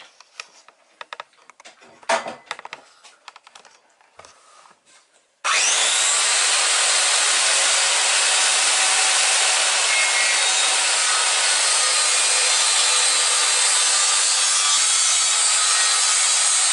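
A few light clicks and knocks of handling, then about five seconds in a handheld circular saw starts and runs steadily, its blade ripping a narrow strip lengthwise through a softwood plank about 2.6 cm thick, set to cut barely deeper than the board.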